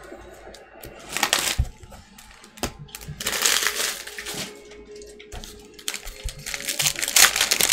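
Crinkly trading-card pack wrapper being handled and torn open, in several bursts of crackling.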